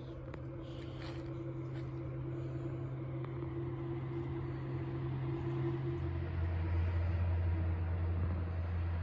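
A motor vehicle's engine hum from the road, steady, dropping to a lower pitch about six seconds in and growing slightly louder.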